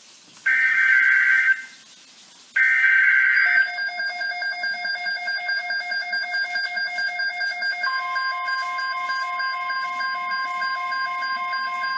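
Emergency Alert System SAME header on NOAA Weather Radio: two short, buzzy digital data bursts about a second apart, the end of the coded alert header. These are followed by a pulsing electronic alert tone, which a steady tone near 1 kHz (the 1050 Hz weather radio warning alarm tone) joins about eight seconds in.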